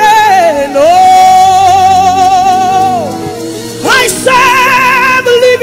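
A woman singing a gospel worship song over instrumental backing. She holds one long note with vibrato, then swoops up into a new phrase about four seconds in.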